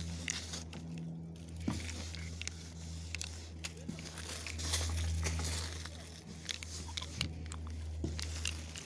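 Wide-tip graffiti ink marker rubbing across a metal panel as a tag is written, in short scraping strokes with a few clicks and a longer rubbing stretch about halfway through, over a steady low hum.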